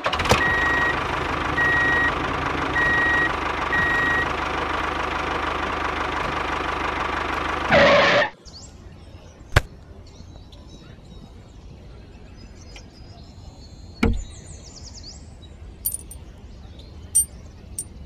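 A vehicle engine running steadily with a reversing alarm beeping four times, cutting off abruptly about eight seconds in. After that, a few faint sharp clicks and taps of small parts being handled.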